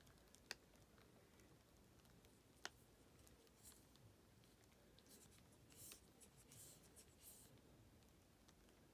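Near silence with faint handling noise from a glass jar with a metal lid being turned in the hand: two small clicks, about half a second in and about two and a half seconds in, and a few soft scratchy rustles in the second half.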